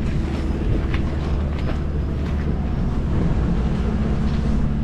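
Wind buffeting the microphone, a steady low rumble, with faint footsteps on gravel.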